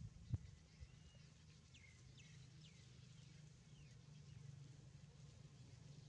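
Near silence over a low steady hum, with a single knock just after the start and a few faint, short, falling high-pitched chirps a couple of seconds in.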